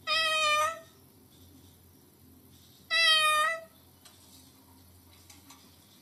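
Sulphur-crested cockatoo giving two short, pitched, meow-like calls about three seconds apart, in imitation of a cat.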